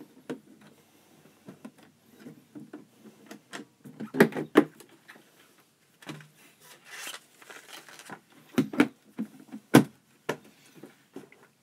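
Clicks, knocks and rubbing as a briefcase is opened and packages inside are handled. The sharpest knocks come about four seconds in and again just before the end.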